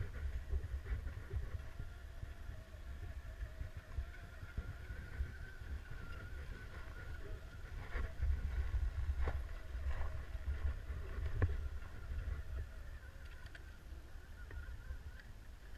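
Uneven low rumble of wind buffeting the microphone, with a faint wavering electric motor whine and a few sharp clicks.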